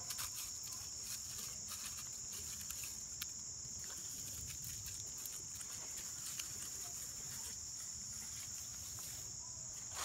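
Steady high-pitched chorus of insects, like crickets, with faint scattered ticks and rustles in dry leaf litter.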